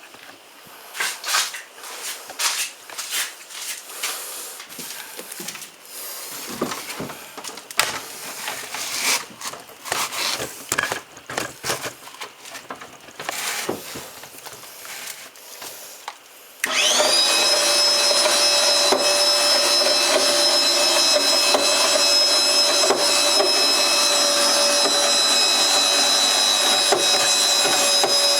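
Irregular knocks and clicks of handling and moving about. About two-thirds of the way in, an electric motor switches on with a quick rising whine and then runs at a steady hum with a high whine.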